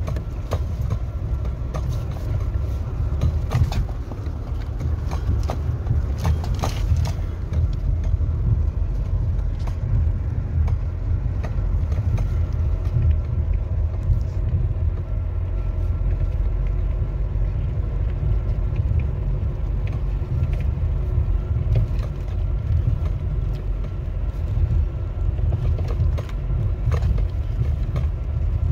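Force Gurkha SUV driving slowly over a rough, rocky gravel road, heard from inside the cabin: a steady low engine and tyre rumble with scattered knocks and rattles as the vehicle jolts over the stones.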